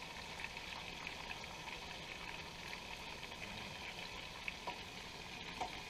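Steak frying in a pan, a faint steady sizzle with fine crackle, and a couple of light clicks near the end.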